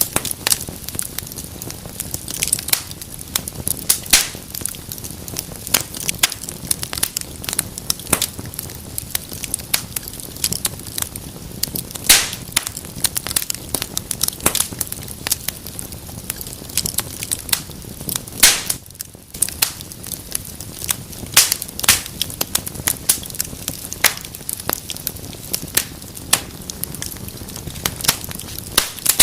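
Wood fire in a fireplace crackling: a steady run of sharp pops and snaps over a low rushing of flame, with a few louder pops.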